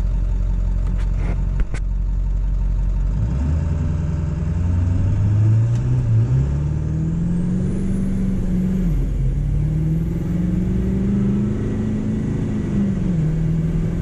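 Ford 7.3 Powerstroke turbo-diesel V8 idling at a stop, then accelerating hard from about 3 seconds in, heard from inside the cab. Its pitch climbs through each gear and drops back at each of about three upshifts while turbo boost builds.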